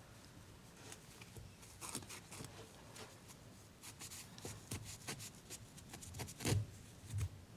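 Faint scratching and rubbing with small clicks: a pipe cleaner scrubbing grime out from between a vintage pocket knife's handle scales. The strongest scrapes come near the end.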